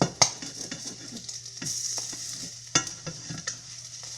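Eggs sizzling as they fry in a pan, with a cooking utensil knocking and scraping against the pan several times, sharpest at the very start.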